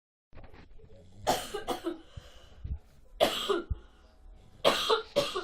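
Boxer dog snoring in its sleep: three loud snores about a second and a half apart.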